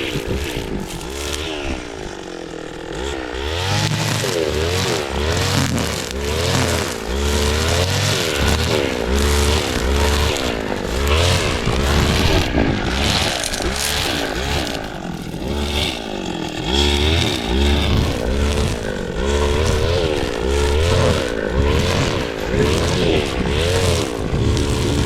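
Tractor engine running as it works the field, its pitch rising and falling again and again as the load changes.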